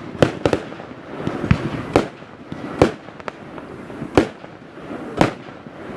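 Aerial fireworks bursting: a run of sharp bangs at uneven intervals, roughly one or two a second, each trailing off in echo over a steady background hiss.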